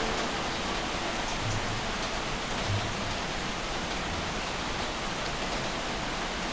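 Steady, even hiss with no distinct events in it.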